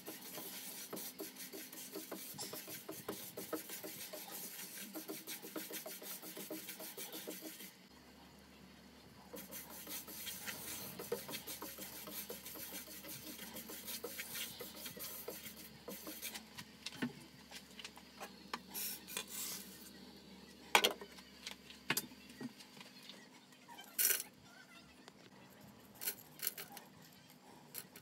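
Coriander seeds being stirred as they dry-roast in a nonstick frying pan with a silicone spatula: a dry rustling and scraping of the seeds over the pan. The scraping is dense at first, then sparser, with a few sharp knocks later on.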